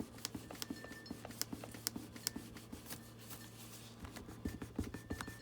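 Paper being handled and rubbed by hand: soft rustling with many small, irregular crackles and ticks, over a faint steady low hum.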